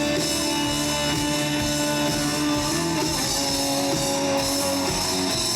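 Rock band playing an instrumental passage: guitars over a drum kit, with no singing.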